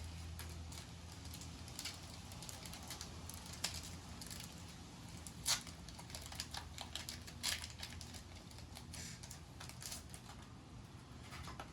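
A foil Pokémon booster pack and its trading cards being handled: faint scattered clicks and rustles, the sharpest about five and a half and seven and a half seconds in.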